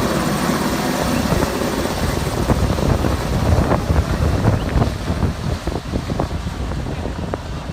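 Helicopter running close by during a takeoff, its rotor noise mixed with heavy wind buffeting on the microphone from the rotor wash.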